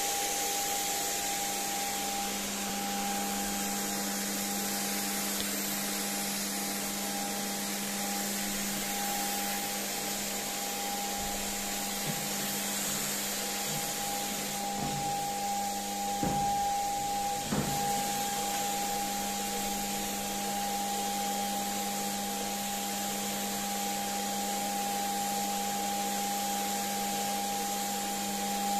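Electric paint sprayer running steadily as varnish is sprayed through a hose-fed spray gun: an even motor hum with hiss. A few light knocks come about halfway through.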